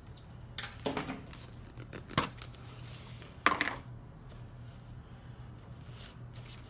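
A few brief handling noises, rustles and knocks, as a clear plastic tube container is handled and its cotton packing pulled out, the loudest about three and a half seconds in, over a faint steady hum.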